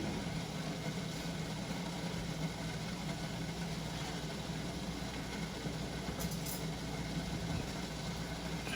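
Fish fritters frying in oil in a pan: a steady sizzle over a steady low hum.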